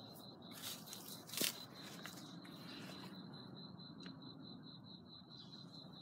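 A few brief rustles and scuffs in the first three seconds, the loudest about a second and a half in, over a faint steady high-pitched tone that pulses quickly.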